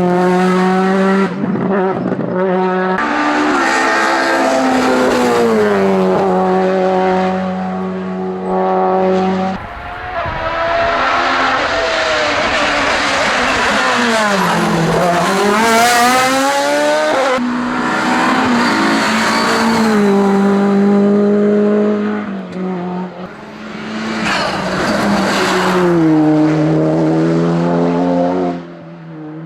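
Race cars at full throttle on a hillclimb course, one after another, engines climbing in pitch through repeated upshifts. In the middle one car's revs fall sharply as it slows for a corner, then rise again as it accelerates away.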